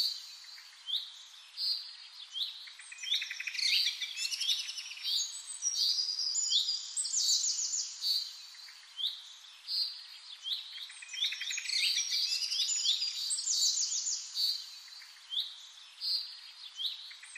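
Small birds chirping and trilling in quick, high calls, the same stretch of birdsong repeating about every eight seconds like a looped background track.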